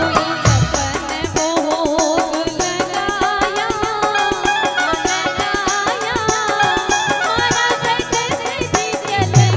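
A woman singing a Rajasthani devotional bhajan through a microphone and PA, with a wavering, ornamented melody over instrumental accompaniment and a fast, steady hand-percussion beat.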